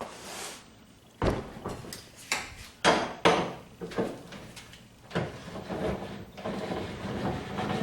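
Clatter of hand tools and car door parts being handled: sharp knocks, the loudest about a second in and twice around three seconds in, with scraping and rustling between.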